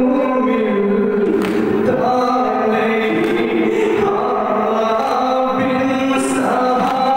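A male reciter singing a noha, a Shia mourning lament, into a microphone in long held phrases whose pitch rises and falls.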